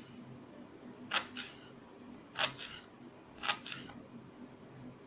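Kitchen knife slicing garlic cloves and knocking on a wooden cutting board: six sharp taps in three pairs, about a second apart.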